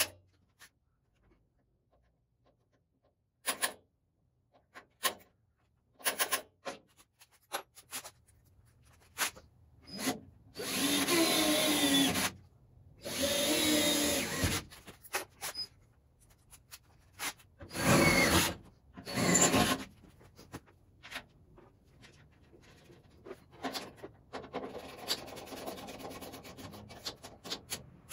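Power drill boring holes through the Model A roadster's steel door sill and body: two runs of about two seconds each with a wavering motor whine, then two shorter bursts, among clicks and knocks of tools being handled.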